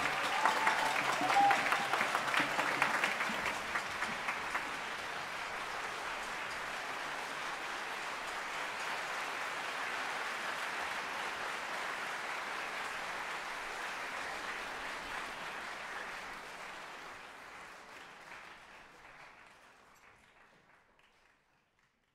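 An audience applauding in a concert hall, densest in the first few seconds, then a steady clapping that fades away near the end.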